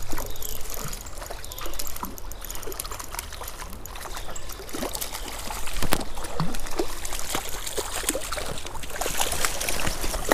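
Water splashing and trickling as a hooked rainbow trout thrashes near the surface. Scattered small clicks and knocks run through it, the sharpest about six seconds in.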